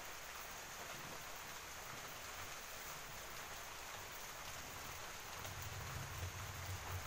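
Stove burner hissing steadily under an aluminium pan of oil, with a low flame roar coming in about five and a half seconds in as the flame flares up.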